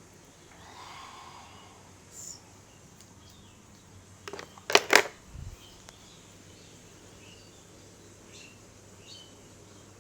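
A quick run of sharp cracks a little past four seconds in, the loudest two close together, followed by a low thump. Faint high chirps come twice near the end.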